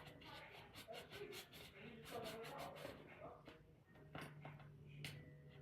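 Near silence with faint, small scratches and clicks: old screen adhesive being scraped and picked off a phone's frame with a hand tool.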